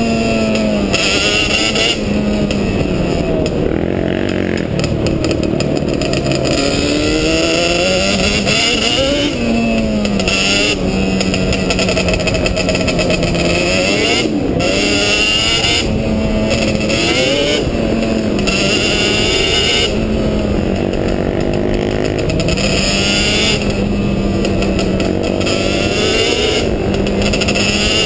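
Quad (ATV) engine running under riding load, its pitch rising and falling again and again as the throttle is opened and eased off.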